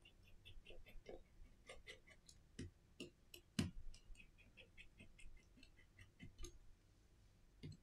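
Faint, irregular clicks and taps of small repair tools and tiny screws being handled on the opened Samsung Galaxy A51's frame and a silicone repair mat, with one louder tap about three and a half seconds in.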